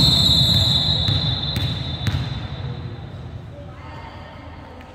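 A referee's whistle sounds one long, steady, high note that fades out over about three seconds. Under it is spectator chatter with a few ball thumps in a large hall, and the chatter slowly dies down.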